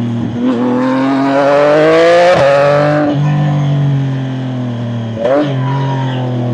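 CFMOTO 675NK's three-cylinder engine accelerating under throttle, its note rising for about two seconds, then dropping sharply at a gear change. It then pulls steadily, with another brief shift about five seconds in.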